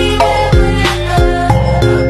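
Background music with a steady beat, heavy bass and plucked or mallet-like melody notes.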